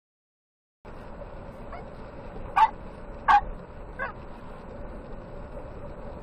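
Silence, then about a second in the steady road and engine noise heard inside a car on a wet highway, with a faint steady hum. Two loud, short, sharp sounds like a dog's barks come a little under a second apart near the middle, with fainter ones around them.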